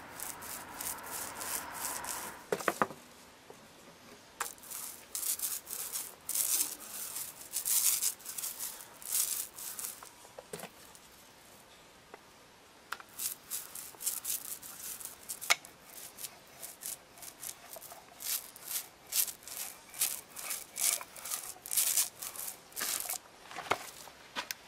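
Small paint roller rolled back and forth over wet paint on a cast iron ballast keel: a rubbing hiss with each stroke, in runs of quick strokes, with a pause of a few seconds in the middle.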